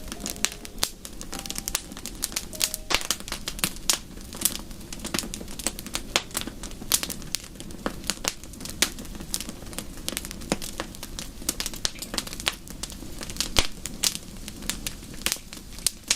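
Wood fire crackling in a fireplace: irregular sharp pops and snaps, several a second, over a low steady hiss.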